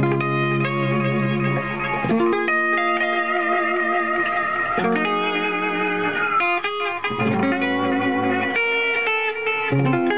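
1958 Gretsch 6120 hollow-body electric guitar playing slow, held chords that change every second or two, several with a wavering vibrato, and one note sliding down about six seconds in.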